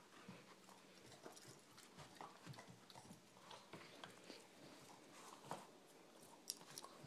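Faint, scattered clicks and wet smacks from a Boston terrier puppy: claws tapping on a hard floor and her tongue licking, with one sharper click near the end.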